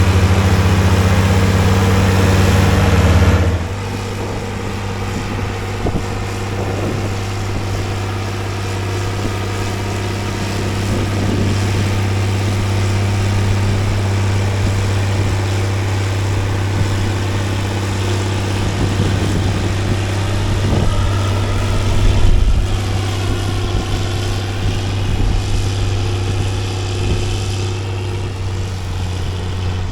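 Heavy engine running steadily with a low hum; its level drops a step about three and a half seconds in, then holds.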